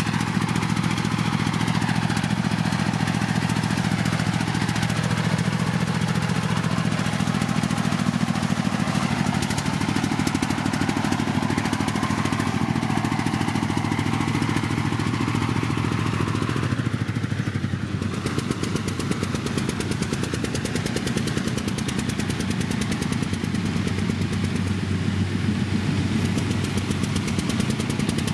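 Kubota DC105 combine harvester's diesel engine running steadily, its note shifting slightly partway through and dipping briefly about two-thirds of the way in.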